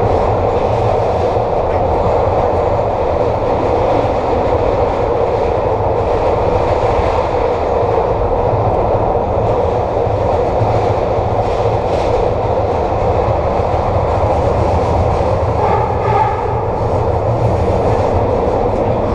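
SEPTA Kawasaki K-car light rail vehicle running steadily: continuous wheel-on-rail and traction motor noise with a low rumble and a few faint clicks.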